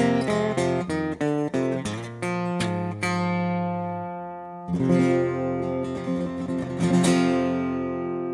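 Solo steel-string acoustic guitar playing the song's instrumental ending: quick fingerpicked notes for about two seconds, then a few full chords struck and left to ring.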